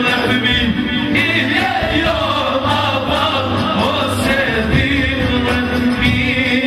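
A man singing an Albanian song live into a microphone, his voice wavering in ornamented runs over amplified instrumental accompaniment with a held tone and a pulsing bass beat.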